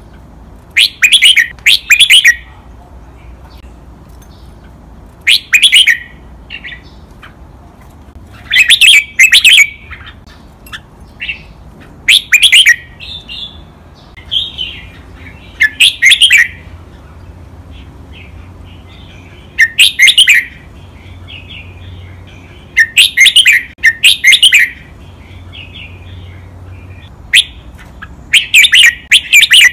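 Red-whiskered bulbul singing loudly in short phrases of quick notes, one phrase every three to four seconds, with softer chattering in between.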